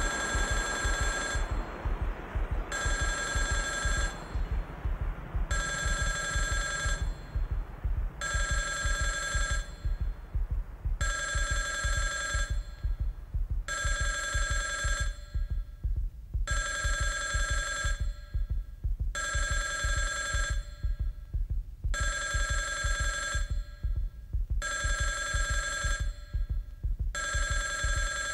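A telephone-like electronic ring sounding in a steady cadence, each ring about a second and a half long, repeating roughly every three seconds, over a fast, even low throbbing pulse.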